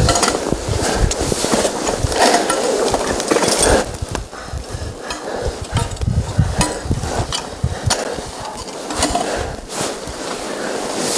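Wind buffeting the microphone, with scattered metallic clinks and scrapes of ice-climbing gear on rock and ice. Louder for about the first four seconds, then it eases.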